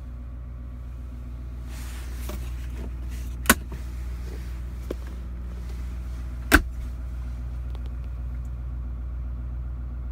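2018 GMC Sierra 2500HD pickup's engine idling with a steady low hum, heard inside the cab. Two sharp clicks about three seconds apart stand out as the loudest sounds.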